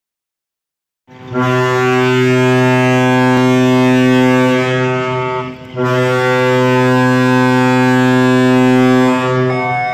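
The ship's horn on the passenger ship KM Kelimutu sounding two long, deep blasts, the first starting about a second in and the second just after a short break, as a departure signal.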